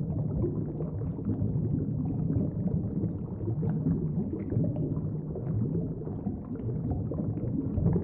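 Low, rumbling underwater ambience: a steady, noisy wash of water sound with no tones or rhythm.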